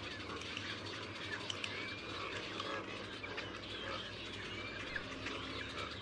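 Many small birds chirping and whistling at once, a dense chorus of short calls and little rising and falling whistles over a steady hiss.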